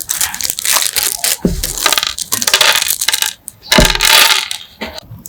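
Metal parts of an MP5 being handled and worked: rapid clicking, scraping and clattering in several spells, with a couple of heavier knocks.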